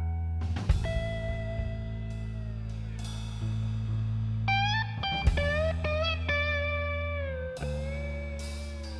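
Background music: a blues-style track with slide guitar over bass and drums.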